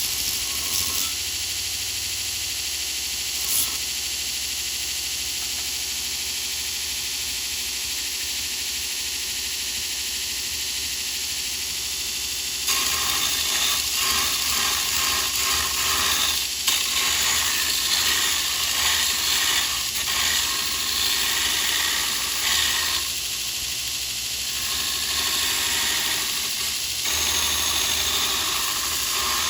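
Electric angle grinder running steadily, then about thirteen seconds in it bites into steel and gets louder with a rough, wavering hiss as it grinds off a burr.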